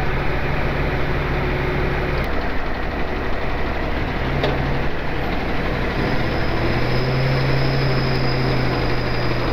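Truck engines running under load as a tow truck drags a dump truck out of soft sand on a recovery rope. The engine note changes about two seconds in and grows stronger about six seconds in, and a thin high whine joins it.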